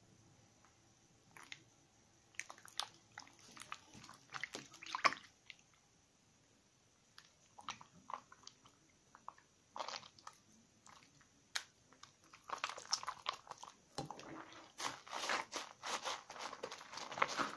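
A slightly soaked bar of 72% laundry soap squeezed and rubbed in wet hands in a bowl of water, giving scattered squelches and wet clicks. About two-thirds of the way through the sound turns dense and nearly continuous as a sponge is scrubbed against the bar to work up a lather.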